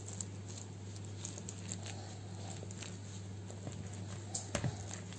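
Metal potato masher working through soft, buttery boiled potatoes in a pot: scattered soft squishes and light clicks, with a couple of sharper knocks of the masher against the pot about four and a half seconds in, over a steady low hum.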